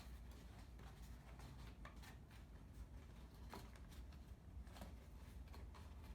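Faint rustling and soft scattered clicks of hands working a bicycle inner tube back inside the tire, over a low steady hum.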